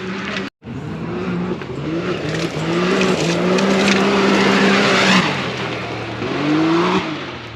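Off-road race vehicle's engine accelerating hard, its pitch climbing in repeated steps, falling away about five seconds in, then climbing again before cutting off near the end.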